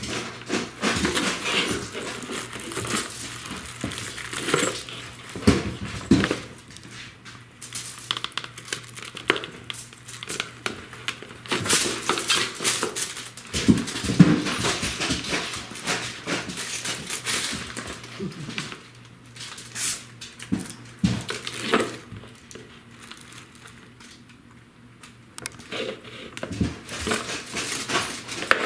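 Paper gift bags and tissue paper rustling and crinkling as cats paw at them and push their heads inside, with a gift bucket knocking and scraping on a hardwood floor. The rustling comes in fits and starts and dies down for a few seconds toward the end.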